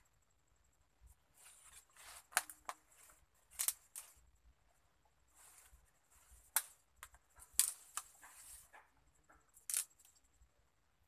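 Dry brush and twigs being handled while clearing undergrowth: rustling leaves with several sharp, irregular snaps and cracks of breaking twigs.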